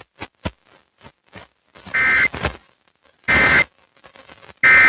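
Emergency Alert System end-of-message data bursts received over the radio: three short, harsh buzzing tone bursts about 1.3 seconds apart, marking the end of the required monthly test. A few faint clicks come before them.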